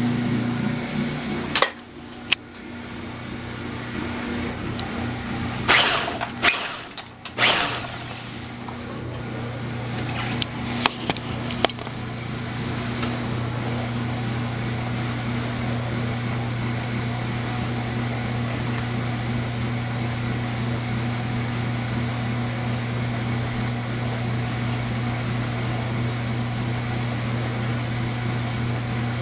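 A steady low mechanical hum from a small running motor. It dips briefly about two seconds in, with a cluster of sharp clicks and knocks about six to eight seconds in, and runs steady again after that.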